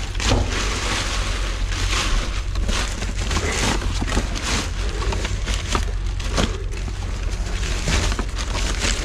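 Rummaging through trash inside a dumpster: bags and discarded items rustling, crunching and knocking irregularly, over a steady low hum.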